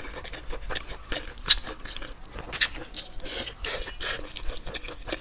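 Close-miked eating sounds: irregular wet smacks, clicks and chewing of a person eating, several sharp smacks a second.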